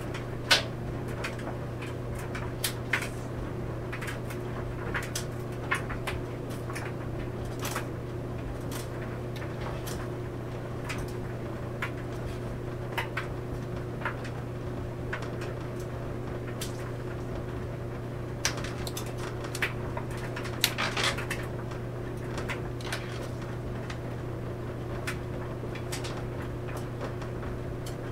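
Clothes dryer running, its laundry tumbling in the drum: a steady low hum with irregular clicks and knocks as the load hits the drum.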